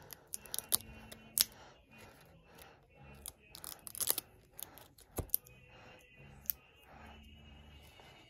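Shrink-wrapped plastic Blu-ray case being handled and turned over in the hand: scattered sharp clicks and crinkles of the plastic, loudest about a second in and again around four to five seconds in.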